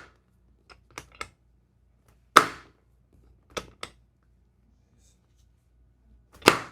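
Sharp snapping clicks: two loud snaps about four seconds apart, each followed about a second later by a quick pair of fainter clicks, and another loud snap at the very end.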